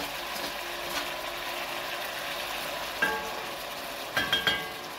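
Chicken gizzards sizzling as they fry in a cast-iron kazan. A metal slotted spatula clinks sharply once about three seconds in and several times in quick succession near the end.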